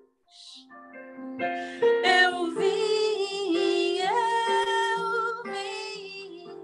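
A woman singing a wordless, drawn-out closing phrase over sustained accompaniment chords. There is a breath just before she comes in, and she holds a note with vibrato near the end.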